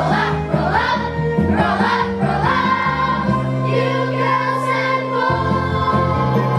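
A song sung by a choir over instrumental accompaniment with sustained bass notes.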